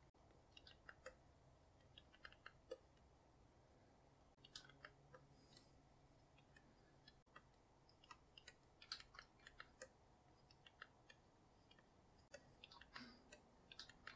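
Faint, irregular clicks and taps of a pen stylus working on a drawing tablet, over near silence.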